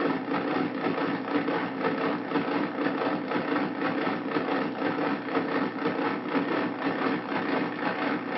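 Hand-made Arduino noise synthesizer playing a dense, steady drone with a fast, rattling flutter.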